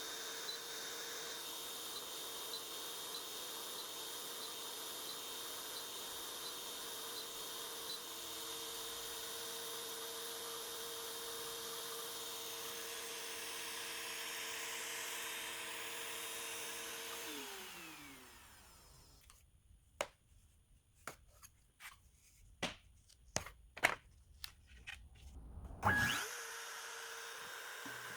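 Router spindle of a Longmill MK2 hobby CNC running steadily, then spinning down with a falling whine about 17 seconds in. A series of sharp clicks and knocks follows, and a steady hum starts again near the end.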